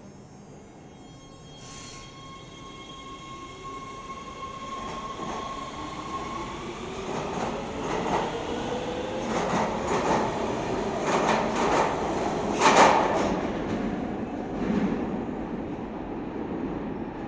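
Metro B Line subway train running through the station and gathering speed. Its electric motor whine rises in pitch, and the train grows louder, with a run of sharp wheel clacks on the rails that peaks about 13 seconds in before the sound eases off.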